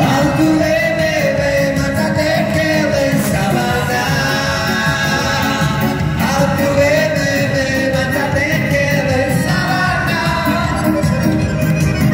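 Live amplified band music: a man singing a wavering melody into a microphone over electronic keyboard accompaniment, loud and continuous.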